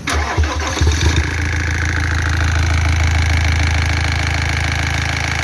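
Iveco Daily 35S14's four-cylinder diesel engine, alternator belt removed, started up: irregular surges for about a second as it catches, then a steady idle with a continuous noise from the front of the engine that the owner takes for a worn timing chain tensioner or wear in the timing chain kit.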